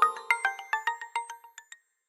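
Old mobile phone ringtone: a quick run of bell-like electronic notes that grows quieter and stops shortly before the end, the end of one loop of the tune.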